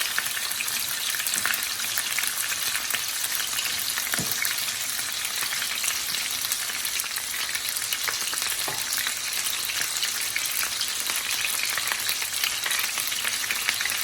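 Chicken thighs shallow-frying in hot oil in a pan: a steady sizzle with constant fine crackling and spitting of the oil.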